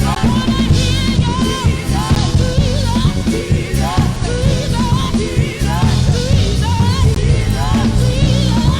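Live worship band music with a steady, full beat and a gliding melody line over it.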